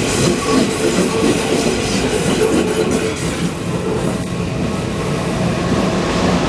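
Electric commuter train passing at close range: steady, loud wheel-on-rail noise with some clatter and a few steady tones underneath.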